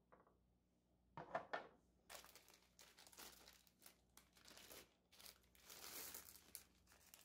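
A couple of soft knocks about a second in, then a small clear plastic bag of assembly screws crinkling on and off as it is handled and opened.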